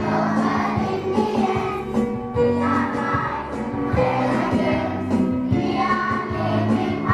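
A large group of young schoolchildren singing together in unison, over steady instrumental music.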